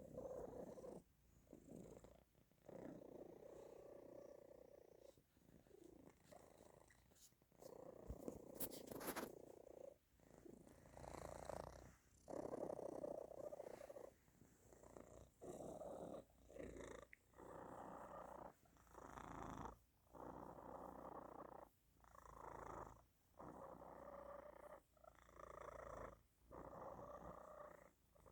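A tomcat snore-purring: a rumbling purr that comes in waves with each breath, about one every second and a half, with a short pause between them.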